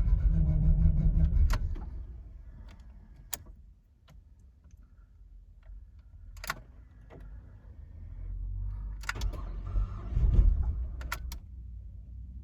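Ford Falcon BF dedicated-LPG engine being hard to start. A low engine sound dies away about two seconds in, then comes a run of sharp key and ignition clicks, then a second low rumble swells up and falls back near the end. This is the intermittent hard start that the owner cannot yet explain.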